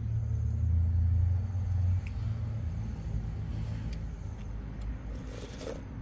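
A low steady rumble, loudest for the first two seconds, then dropping suddenly to a lower level. A wooden spoon clinks lightly against the soup bowl, and near the end there is a short slurp of the soup.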